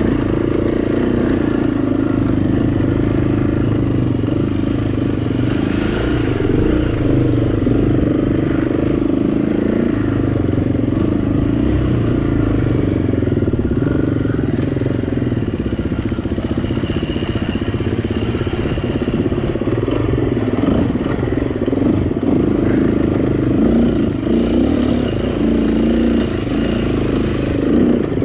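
Off-road dirt bike engine running steadily at low revs, rising and falling a little with the throttle as the bike picks its way over rocky, technical single track.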